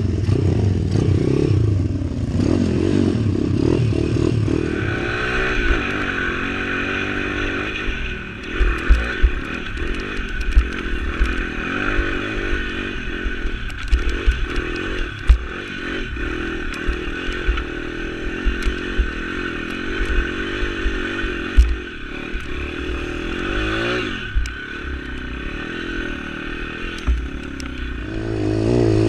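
Pit bike's 140 cc YX single-cylinder engine revving up and down on a rough climb, with repeated sharp knocks and clatter through the middle as the bike jolts over rocks.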